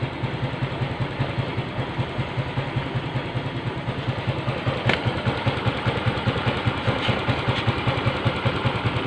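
Yamaha Mio Soul GT (Mio M3 125) single-cylinder engine idling steadily with an even throb, now that the engine oil temperature sensor connection is repaired and fault code 28 has cleared. A single sharp click sounds about halfway through.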